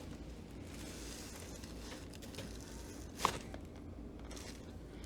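A joint cracking once during a chiropractic adjustment, a single short sharp pop about three seconds in. It marks the joint releasing, a successful adjustment.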